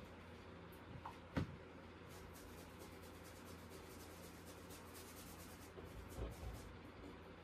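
Faint scratchy strokes of a paintbrush across a canvas over a steady low hum, with one sharp knock about a second and a half in and a softer thump about six seconds in.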